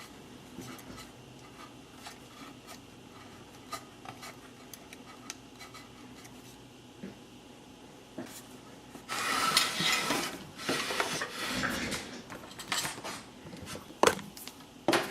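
Handling noise inside the opened metal case of a soldering and hot air rework station: faint light taps at first, then a few seconds of louder scraping and rustling about nine seconds in, and a few sharp metallic clicks near the end.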